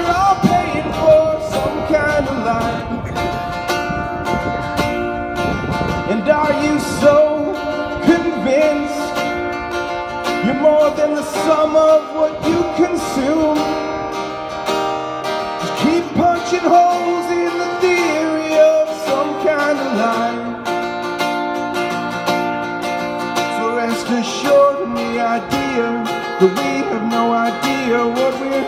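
Acoustic guitar played live, with a man singing a folk song over it.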